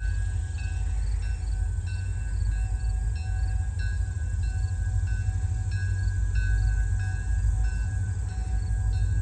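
Freight train of tank cars giving a steady low rumble. Short high tones repeat over it about every half second.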